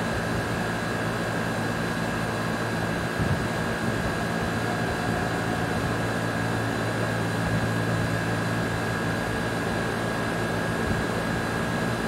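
A steady mechanical hum with a faint constant high whine over it, even in level throughout, with no rising or falling siren tone.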